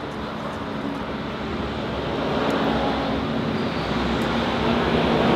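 Engine drone of a motor vehicle passing on the road, growing louder about halfway through and staying up.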